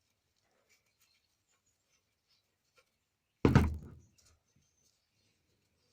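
One loud thunk about three and a half seconds in, a metal sprinkler part knocking against a hard surface, dying away within about half a second. Faint small handling clicks around it.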